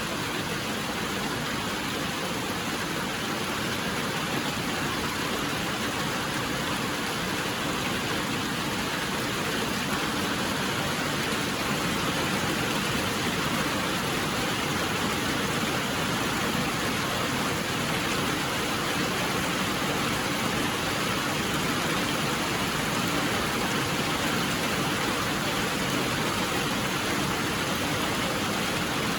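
Steady rain falling: an even, unbroken hiss of rain with no pauses or distinct drops standing out.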